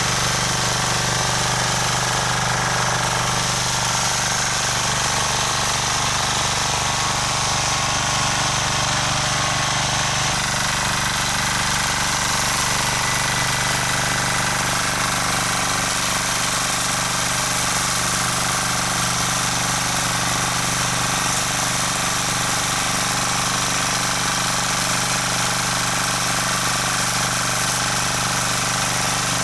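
Rotakt rotary tiller's single-cylinder engine running steadily under load, its tines churning through the soil, the note shifting slightly about ten seconds in.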